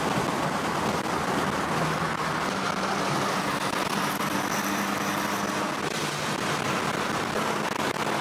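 BMW 2002 cruising at freeway speed, heard from inside the cabin: a steady engine drone under wind and road noise, the engine uncovered with the hood off.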